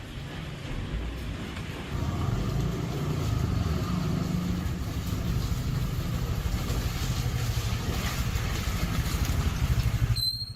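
A motor vehicle's engine running steadily while on the move, a low rumble that cuts off abruptly near the end.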